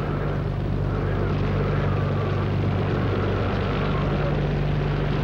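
Storm sound effect: steady rushing wind with a faint wavering whistle, over a steady low drone.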